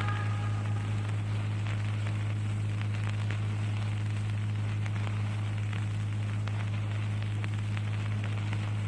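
Steady low hum and hiss of the sound system or recording, with faint scattered crackle, in a pause of Qur'anic recitation. The reciter's last held note fades out in its echo within the first half-second.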